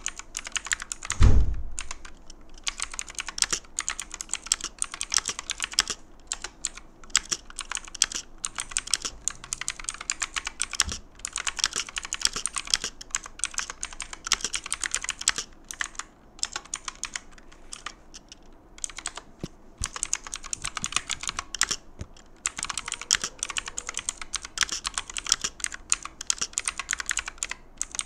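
Armageddon MKA-2C Neo mechanical keyboard with clicky blue switches being typed on fast and steadily, with a few brief pauses. There is a heavy thump about a second in, the loudest sound in the stretch.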